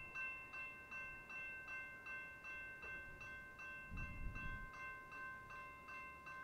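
Railroad grade crossing warning bell ringing steadily, about two and a half dings a second, as the crossing signals flash and the gates lower. A brief low rumble comes about four seconds in.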